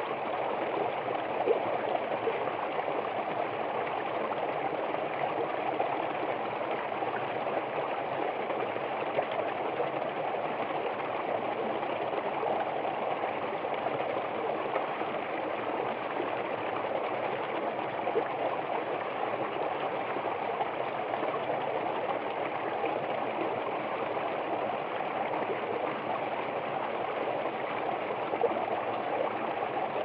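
Small stream of water running and splashing over rocks among ice formations: a steady rushing, gurgling water sound, with a few brief louder splashes.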